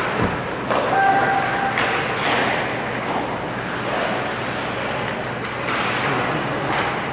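Ice hockey game in an indoor rink: a steady wash of play and spectator noise, with a sharp knock about a quarter second in and a brief held shout about a second in.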